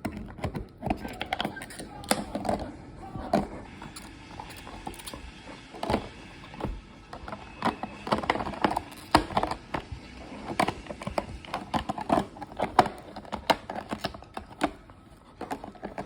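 Golden retriever puppy chewing and crunching an empty plastic PET bottle, with irregular crackles and sharp clicks.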